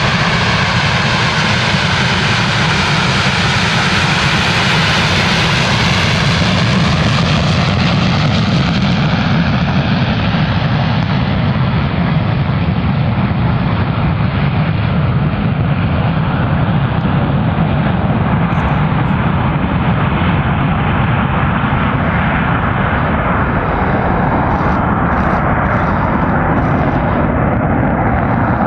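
Boeing 737-200's JT8D jet engines running loud and steady. The high hiss fades after about eight seconds as the aircraft draws away, and a few short crackles come near the end.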